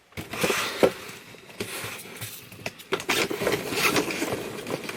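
Packaging being rustled and scraped by hand while an item is dug out of a box of packing peanuts, with many sharp clicks and knocks, the loudest about a second in and another near three seconds in.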